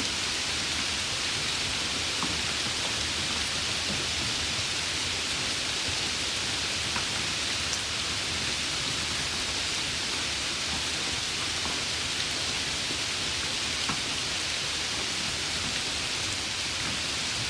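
Steady rain falling, an even hiss with a few faint individual drop ticks scattered through it.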